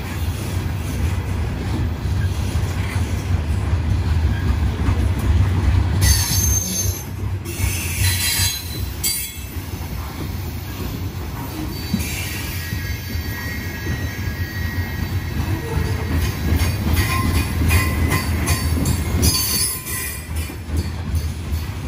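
Coal train hopper cars rolling past close by with a steady low rumble of wheels on rail. Bursts of high-pitched wheel squeal come about six seconds in and again through most of the second half.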